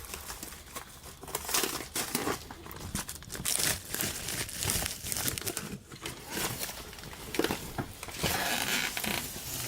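Packaging around a replacement laptop screen being unwrapped, with irregular crinkling and crackling and some tearing.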